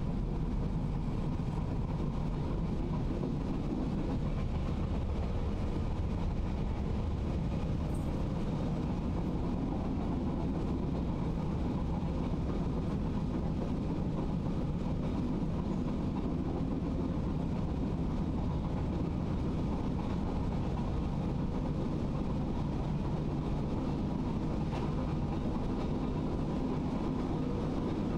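Roma–Giardinetti narrow-gauge train running along the track: a steady low rumble that holds without change.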